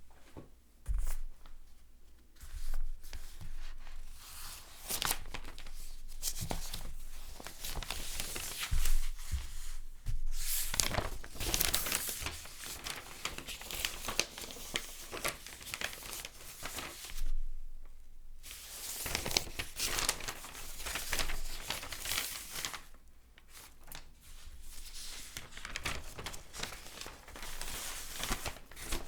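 Paper pages being turned one after another, each turn a short rustle and crinkle of paper, with a few brief pauses between runs of turns.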